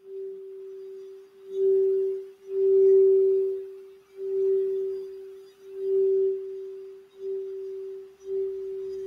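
Crystal Alchemy crystal singing bowl tuned for the throat chakra, played by circling a wand around its rim. It gives one sustained note that swells and fades about every one and a half seconds, with a faint rubbing of the wand on the rim at each swell.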